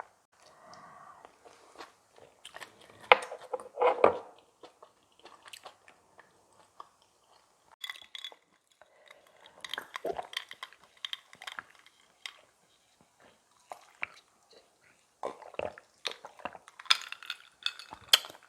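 Close-miked eating: irregular wet chewing and crunching of spicy kimchi bibimbap, with a few louder bites a few seconds in and a run of crackly mouth sounds near the end, plus occasional clinks of utensils on dishes.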